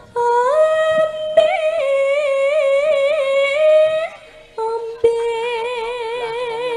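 A Javanese sinden's solo female voice singing long held notes with a wide, regular vibrato. The first note slides upward about half a second in and breaks off after about four seconds. A second, lower held note follows half a second later.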